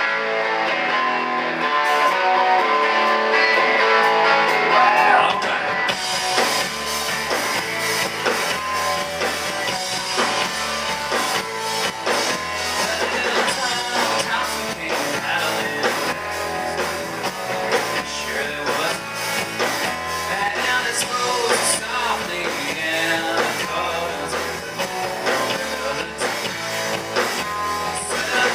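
Rock band playing live: guitar alone at first, with bass and drums coming in about five seconds in and the full band continuing.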